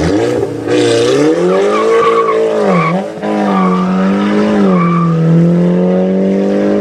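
Volkswagen Golf GTI MK6's straight-piped turbocharged four-cylinder engine, revved up and held at high revs for several seconds. It rises in the first second or so, then dips briefly twice before climbing back.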